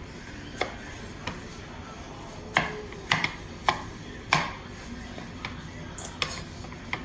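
Knife knocking on a cutting board while chopping roasted red peppers: about ten irregular chops, the loudest bunched in the middle.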